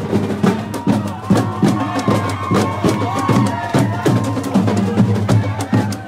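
Drums beating a steady, loud marching rhythm of about two to three strikes a second, with raised voices over it.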